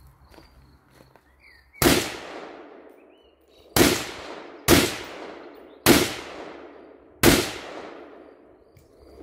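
Five gunshots from a shoulder-fired long gun at an irregular pace, roughly a second to a second and a half apart with one quicker pair in the middle. Each shot is a sharp crack followed by a long fading echo.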